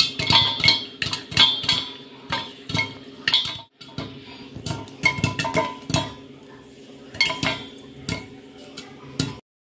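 Popcorn kernels popping in a lidded steel pan on the stove, irregular sharp pops ticking against the metal several times a second as the kernels burst in the hot oil, over a steady low hum. The sound cuts off abruptly near the end.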